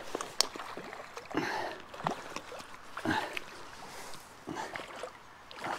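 Scattered soft splashes, clicks and rustling as a landing net is worked through reeds into the river to scoop up a hooked trout.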